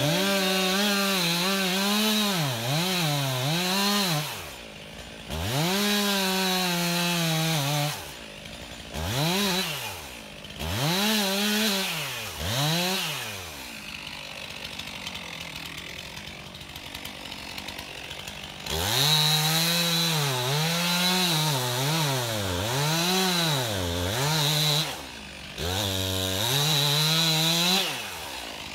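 Stihl MS201 two-stroke chainsaw cutting into a dead blue cedar trunk, run at full throttle in repeated bursts with the engine pitch dipping and climbing back as it bogs under the cut and the throttle is worked. About halfway through it drops back to a low idle for several seconds, then is revved into the cut again.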